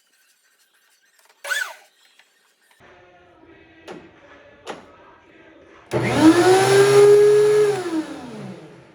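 DeWalt DW735X thickness planer's electric motor switched on briefly: it starts abruptly at full speed, runs for under two seconds, then winds down with falling pitch. A short squeak comes earlier, with a few light ticks.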